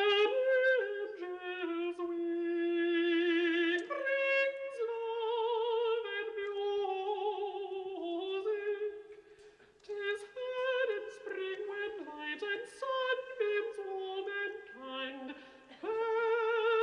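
A man singing a classical song in a high, operatic voice, holding long notes with a wide vibrato. There is a short pause for breath about nine seconds in.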